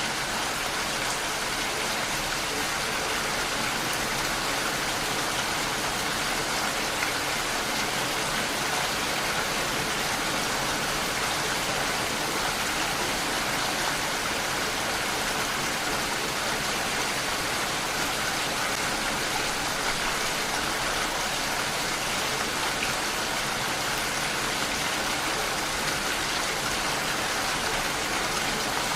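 Steady rainfall: an even, unbroken hiss of rain with no distinct drops or pauses.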